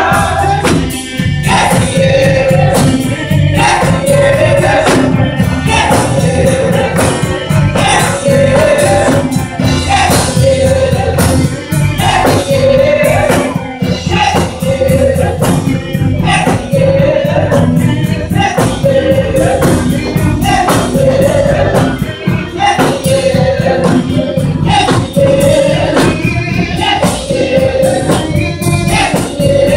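Gospel choir singing a soulful ballad together, belting long held notes over a steady beat and a deep bass accompaniment.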